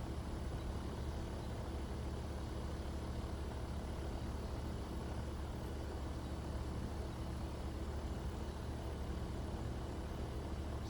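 Steady low rumble of outdoor background noise, with a fainter hiss above it and no distinct events.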